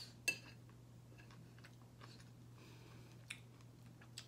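A person quietly chewing chicken gizzard, with faint mouth clicks and one sharp smack about a third of a second in. A steady low hum runs underneath.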